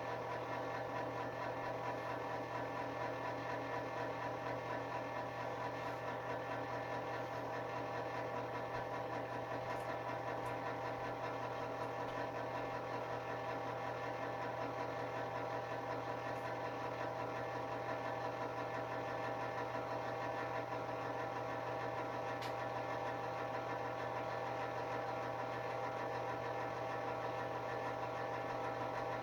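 Space heater's fan motor running at a steady speed, a constant hum.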